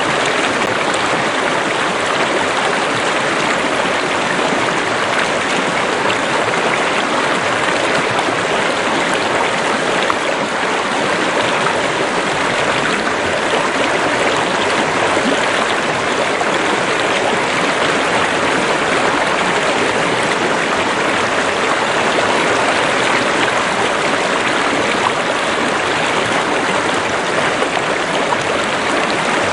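River or stream water running steadily over rocks, with a constant rushing that does not change.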